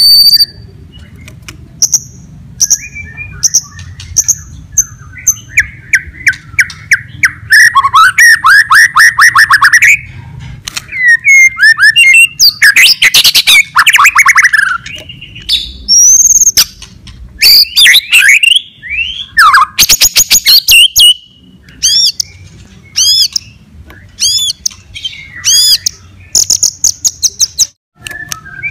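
White-rumped shama (murai batu) singing hard in loud, varied phrases: clear whistles, fast trills, sweeping notes and sharp repeated chips with short breaks between them. This is the full-throated 'fighter' song that stirs up other shamas.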